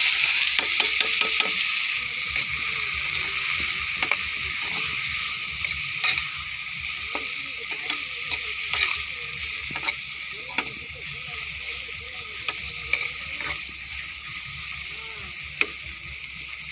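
Chopped tomatoes, onions and green chillies frying in a steel pan, sizzling loudest at first and slowly dying down, while a spoon stirs them and clicks against the pan many times.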